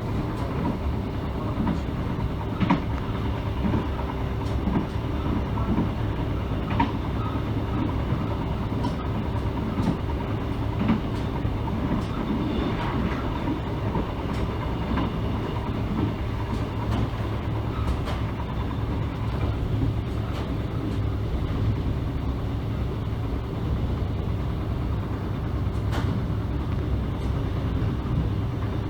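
Mugunghwa-ho passenger train running along the line, heard from inside the carriage: a steady low rumble with scattered clicks of the wheels over the rails and a faint steady hum.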